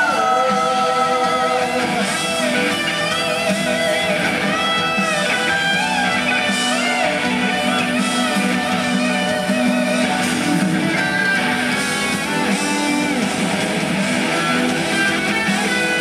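Rock band playing live, an electric guitar carrying a lead line with wavering, sustained notes over strummed guitar and the band's steady backing.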